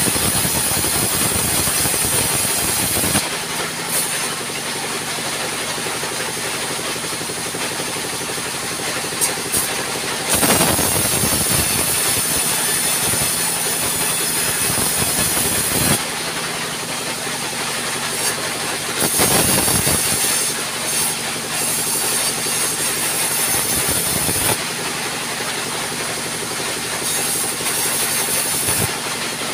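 Sawmill band saw running steadily with a high hiss from the blade, with several louder rasping surges as it cuts through wooden slabs fed by hand.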